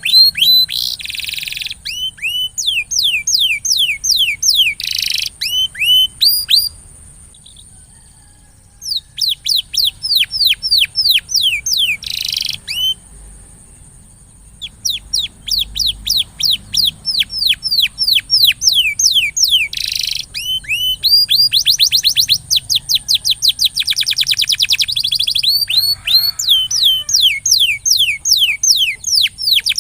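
Domestic canary singing: long rapid trills of repeated down-slurred whistled notes, several a second and quickening in places, with two brief pauses.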